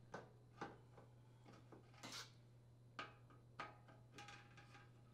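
Faint clicks and scrapes of a Phillips screwdriver backing out the sheet-metal mounting screws of a dishwasher's toe kick panel, about half a dozen small sounds spread across the few seconds, over a low steady hum.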